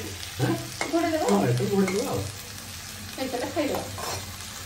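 Vegetables sizzling in oil in a wok, stirred with a spatula that scrapes and knocks against the pan.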